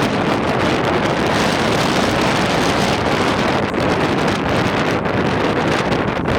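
Strong storm wind buffeting the microphone: a loud, steady rushing noise that does not let up.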